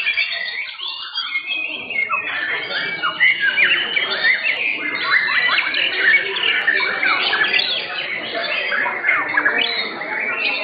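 Several white-rumped shamas (murai batu) singing at once: a dense, continuous tangle of fast whistles and quick rising and falling notes. It thins briefly about a second in, then fills out again.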